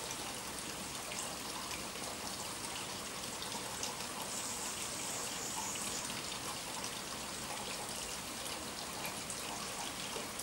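Steady light rain, many small drops pattering.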